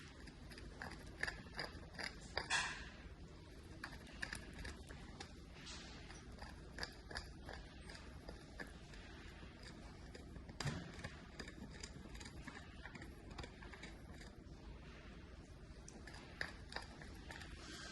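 A mini Bichon puppy gnawing on a deer antler chew: irregular faint clicks and scrapes of teeth on hard antler. Louder bites come about two and a half seconds in and again near eleven seconds.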